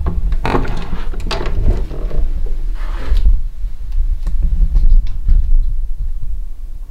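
A person walking while carrying a handheld camera: low thudding footsteps and handling rumble, with rustling in the first few seconds and a few light clicks partway through.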